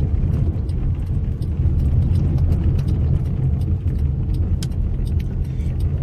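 Steady low rumble of a car's engine and road noise heard inside the cabin while driving, with a few faint clicks.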